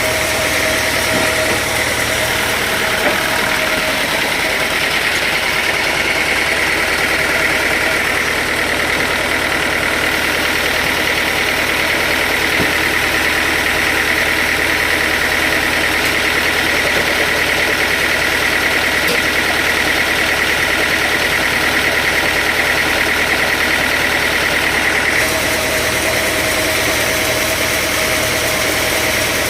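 Sawmill machinery running steadily, with a high whine that comes in a few seconds in and stops a few seconds before the end.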